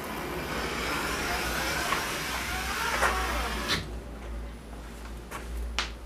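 A ski-skin cutting tool drawn along the ski's edge, its blade slicing through the climbing skin with a steady scratchy noise for about three and a half seconds. It ends with a click, and a few light taps follow.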